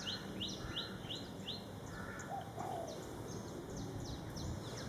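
Birds chirping: a run of short rising notes, about three a second, followed by scattered higher chirps, over a steady outdoor background.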